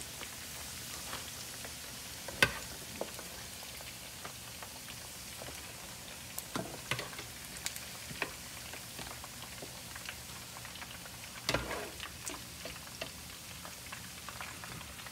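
Pork ribs frying in hot oil in a pan, a steady sizzle, with scattered sharp clinks and taps of a stainless mesh skimmer against the pan as the ribs are scooped out. The loudest clink comes about two and a half seconds in, another strong one around eleven and a half seconds.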